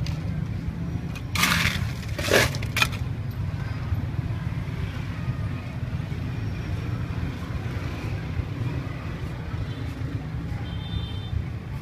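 Steady low rumble of outdoor street background noise, with two brief loud crunching or rustling noises about one and a half and two and a half seconds in.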